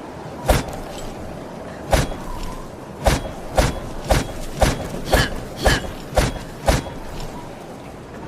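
Short sword sound effect: about ten sharp hits, two spaced apart near the start, then eight about half a second apart, some with a brief ring.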